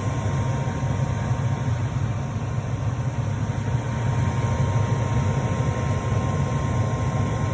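Lennox gas furnace running steadily: a low hum with a thin steady whine and no clanging or banging.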